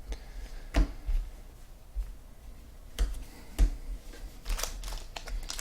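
Trading cards being handled on a table: a few sharp light taps and clicks as cards are set down and squared up, with a short rustle near the end.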